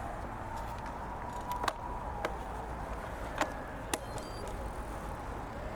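Road bicycle riding along a paved path: steady tyre and wind rumble, with four sharp clicks in the middle of the stretch.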